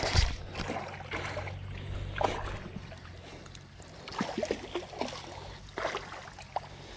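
Footsteps and rustling of leaves and clothing while walking along a pond bank, over the steady low hum and water churn of a paddlewheel aerator.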